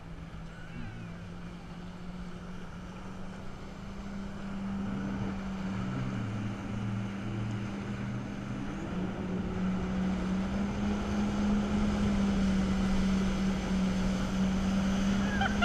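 Jet ski engine running under way, a steady hum that steps up slightly in pitch about halfway through and grows louder as it gathers speed, over the rushing hiss of water and wind.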